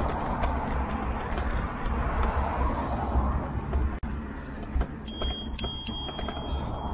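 Riding noise of the Tern HSD bicycle picked up through its handlebar-mounted camera: a low rumble of tyres and wind, with constant light rattling and clicking from the bike on the path surface. About five seconds in, a thin high tone joins it.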